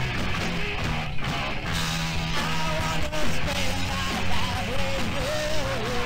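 Rock band recording playing, electric guitar to the fore, with a lead melody that bends and wavers in pitch over a steady low bass line.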